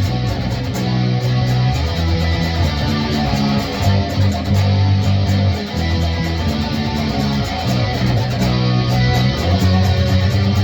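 Electric guitar and bass guitar playing a song together: strummed chords over held low notes that change every second or two.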